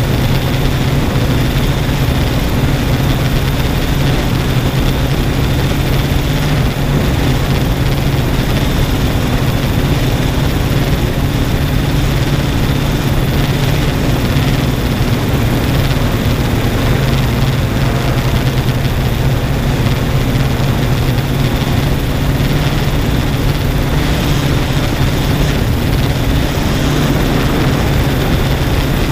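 Yuneec Typhoon G drone's electric motors and propellers making a steady, loud hum as it flies, picked up by the camera on board.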